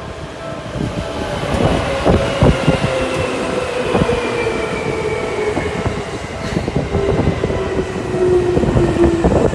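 Yellow electric commuter train passing close by: wheels clacking over the rail joints, with a motor whine sliding slowly down in pitch. The clacks come thicker and louder near the end.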